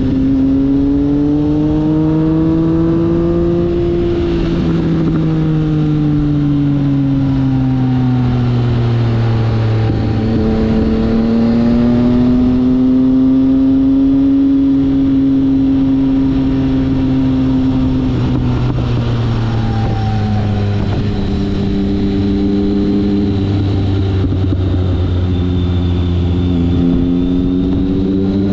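Triumph Speed Triple R 1050's inline three-cylinder engine under way at road speed. Its note rises and falls several times as the throttle is opened and eased, over a steady rush of wind.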